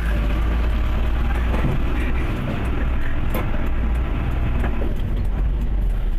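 Steady low rumble of a vehicle moving slowly over a rough, damaged dirt road, with scattered light clicks and rattles.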